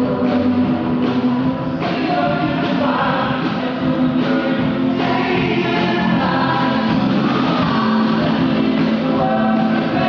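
Live band music with many voices singing together, recorded on a phone from the stands of a large hall.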